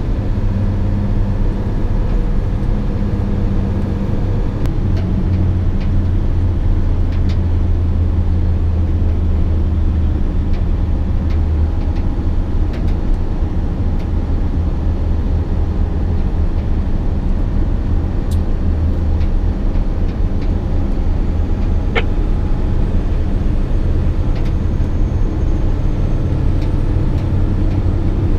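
SANY 6x4 dump truck's diesel engine running at road speed, heard from inside the cab as a steady low drone over tyre and road noise, with a few faint clicks from the cab.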